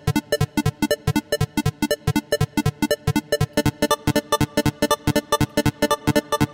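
Software synthesizer playing a rapid run of short staccato notes, about seven or eight a second, through a pre-mastering rack of gain, compressor, multiband dynamics and limiter.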